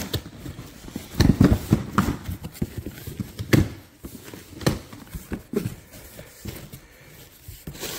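Cardboard shipping box being handled and opened by hand: a series of knocks and taps on the cardboard, a cluster in the first couple of seconds and the loudest about three and a half seconds in.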